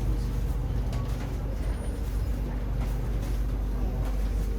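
Cabin noise inside an SMRT C751B train car: a steady low rumble with a constant mid-pitched hum and a few faint clicks.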